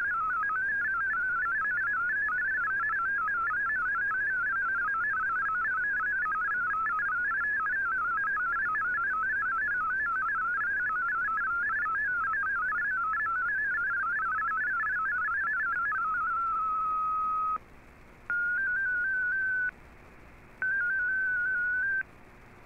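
MFSK32 digital text signal from a shortwave data broadcast, heard through the receiver's AM audio as a fast, high warbling of hopping tones. About 16 s in it settles on one steady tone and stops. Two short bursts of stepping tones follow, with faint band hiss between them: the RSID identifier announcing the change to MFSK64.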